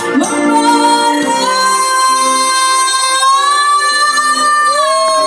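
A woman singing into a microphone with backing music. About a second in she takes one long, high held note with a slight waver, and holds it almost to the end.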